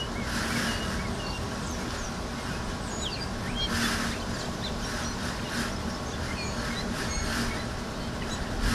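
Small garden birds chirping and twittering, with many short, quick calls, over a steady low background rumble and a few soft rushing surges every couple of seconds.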